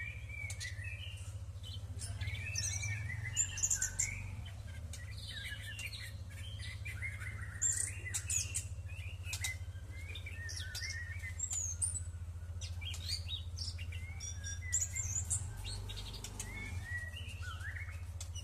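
Anis thrush chirping with short, gliding calls while bathing, with scattered quick flaps and splashes. A steady low hum runs underneath.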